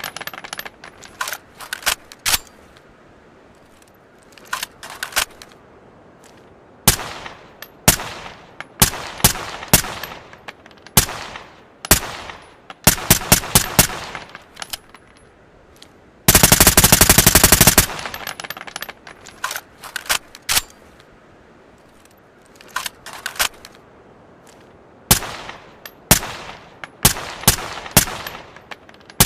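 Suppressed ARN-180 assault rifle firing single shots and quick strings of a few rounds with pauses between, each shot trailing a short ring. About sixteen seconds in comes one long full-auto burst of about a second and a half.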